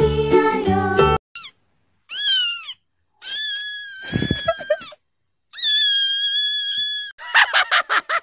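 Cat meowing: four separate meows that rise and fall in pitch, the third and fourth long and drawn out, after dance music cuts off about a second in. Near the end comes a quick run of clicks, about five or six a second.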